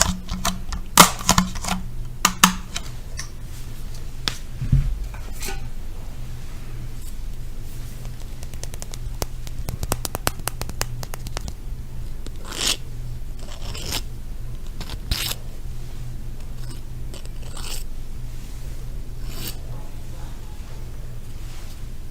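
Close-up ASMR tapping and scratching on objects: sharp taps and clicks at the start, a quick run of rapid clicks around ten seconds in, then several short scratching strokes, over a steady low hum.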